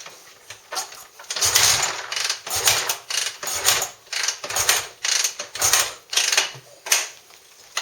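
Honda CRF450R's kick-starter kicked about five times, roughly a second apart, turning the drained engine over without it starting. Each kick is a ratcheting mechanical stroke with a low thump. The kicks push the last of the old oil out of the engine.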